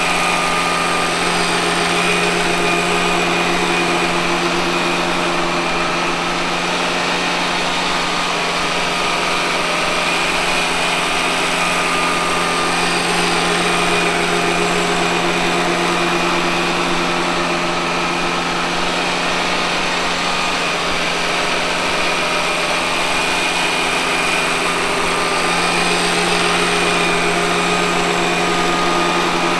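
Robot vacuum cleaner running: a steady motor hum with a thin high whine over the noise of its suction and brushes.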